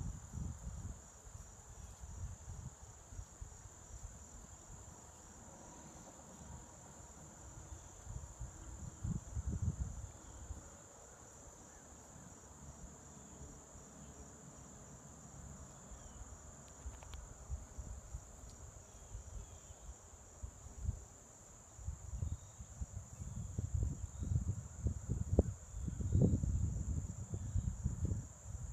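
Steady high-pitched chorus of insects, such as crickets, singing without a break. Irregular low buffeting noise on the microphone comes and goes, heaviest near the end.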